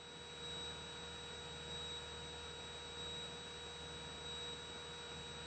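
Faint steady electrical hum with a few thin, unchanging high tones over light hiss, as on a cockpit headset or intercom audio feed between transmissions. The aircraft engine is barely heard.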